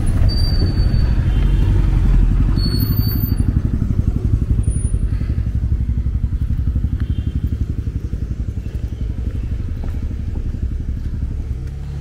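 Motorcycle engine running close by with a fast, even pulse, slowly fading over the last several seconds.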